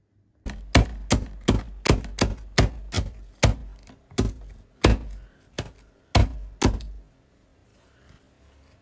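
Knife tip knocking against a plastic cutting board in a run of sharp taps, about two to three a second, as it pierces pieces of green pepper. The tapping stops a couple of seconds before the end.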